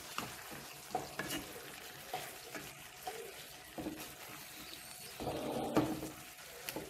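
A wooden spatula stirs and scrapes fried cauliflower florets in a thick sauce around a nonstick pan, with irregular scrapes and soft knocks over a light sizzle. The stirring grows louder for a moment about five seconds in.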